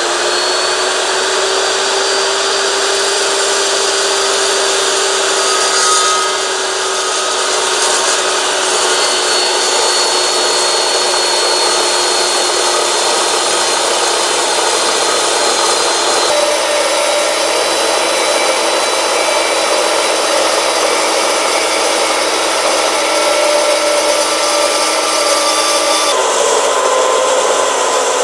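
Evolution S355MCS 14-inch dry-cut metal chop saw under heavy load, its carbide-tipped blade cutting through steel railroad rail: a steady whine over a dense grinding hiss. The pitch sags slightly as the cut goes on and shifts abruptly twice, after about sixteen seconds and again near the end.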